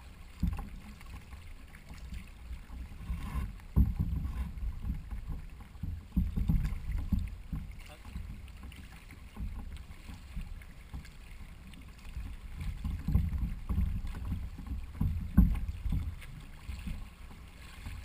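Racing canoe under paddle: water sloshing and knocking against the hull, picked up by an action camera mounted on the boat. It comes as irregular low rumbling surges with a few sharp knocks.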